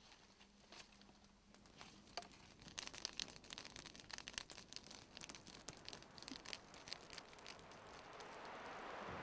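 Faint crackling of a wood campfire: many sharp snaps and pops, coming thickly from a couple of seconds in. A rushing hiss swells up near the end.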